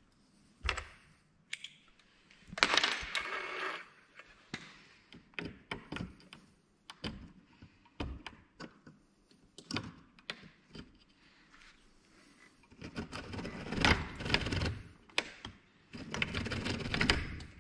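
Glued split-bamboo rod blank being drawn and turned through a wooden thread-binding jig by hand: irregular clicks and knocks of cane on wood, with three longer stretches of scraping and rubbing as the blank is pulled through.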